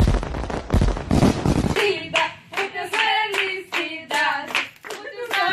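Loud booming bursts of a fireworks sound effect for the first couple of seconds, then a group singing a birthday song and clapping along in a steady beat.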